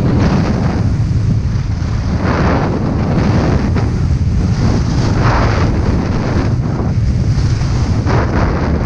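Wind buffeting a GoPro's microphone at skiing speed, a heavy low rumble, with the hiss of skis scraping the groomed snow swelling about every three seconds as the skier turns.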